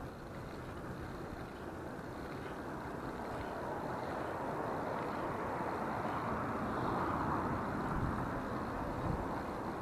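Strong wind buffeting the microphone, a steady rumbling rush that builds into a gust over the middle of the stretch and then eases a little near the end.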